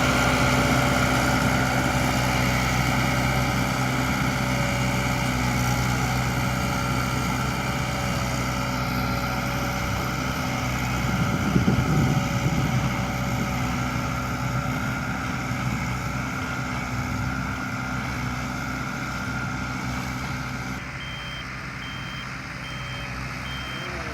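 A heavy vehicle's engine running steadily and slowly fading. About three seconds before the end, a reversing alarm starts beeping at a regular pace.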